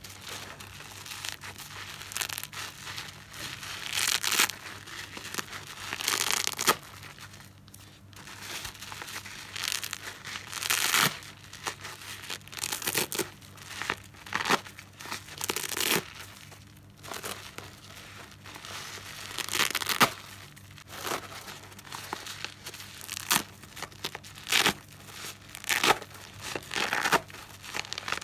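Soapy car sponge being squeezed and ripped apart by hand, making irregular bursts of wet tearing, some much louder than others.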